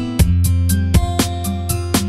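Background music with a steady beat and held low bass notes.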